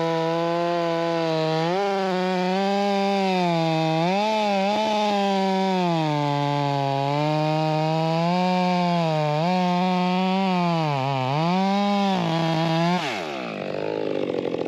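Chainsaw at full throttle noodling a log, cutting along the grain. Its engine pitch dips and recovers repeatedly as the chain loads up in the wood, then the revs drop to idle about thirteen seconds in.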